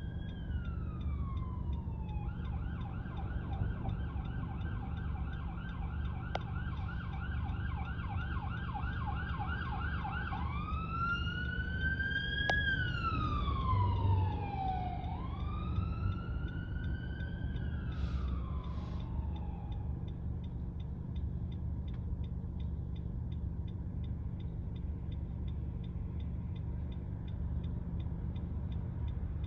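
Emergency vehicle siren on a fast yelp, switching about ten seconds in to a slower rising and falling wail that fades away by about two-thirds of the way through. A steady low rumble of street traffic runs underneath.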